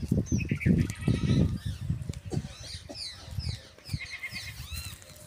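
Goats bleating, loudest in the first couple of seconds, with small birds chirping throughout.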